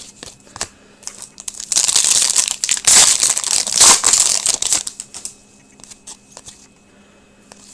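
Crinkling and tearing of a foil trading card pack wrapper as it is torn open and handled, about three seconds long starting near two seconds in, followed by faint light clicks.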